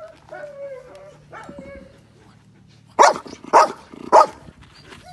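A Belgian Malinois whining twice with a falling pitch, then barking three times in quick succession about three seconds in, while waiting to be sent on a retrieve.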